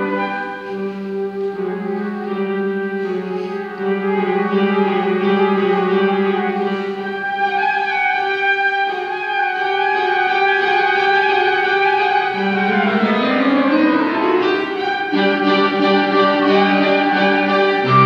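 Concert flute playing a slow, sustained melody over an accompaniment of low held notes, with sweeping rising and falling glides about two-thirds of the way through.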